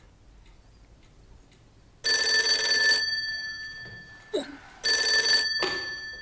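Old desk telephone's mechanical bell ringing twice, each ring about a second long, its tones fading out after the ringing stops.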